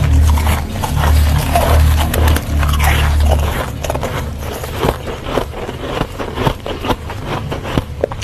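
Close-up crunching and chewing of freezer frost: many crisp, crackling crunches as the ice is bitten and ground between the teeth, with a deep low rumble of chewing through the first few seconds.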